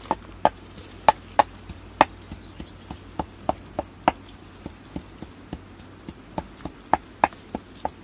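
Wooden pestle pounding in a mortar, knocking about three times a second in a steady rhythm with some strokes harder than others, as chilies are crushed for chili sauce.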